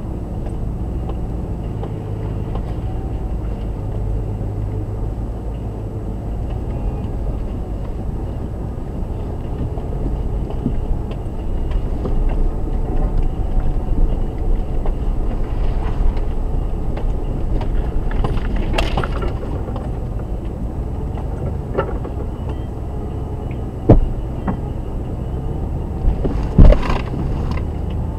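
Jeep Grand Cherokee crawling slowly over a rocky trail, heard inside the cabin: a steady low engine and drivetrain rumble with cabin rattles. Two sharp knocks come near the end.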